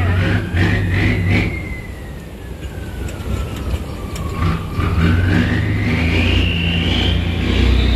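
Cargo boat's engine running hard, its revs easing off and then climbing again. A high whine falls in pitch and then rises with the revs.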